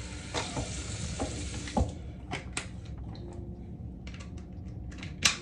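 Tap water running into a water flosser's reservoir, shut off about two seconds in with a knock. Then come short clicks and knocks of the plastic flosser being handled and fitted together, with one sharp click near the end.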